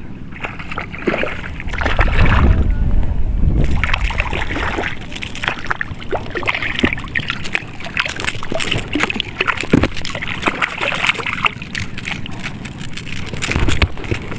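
Shallow seawater sloshing and splashing at the shoreline, with many small splashes throughout and a louder low rumble about two seconds in.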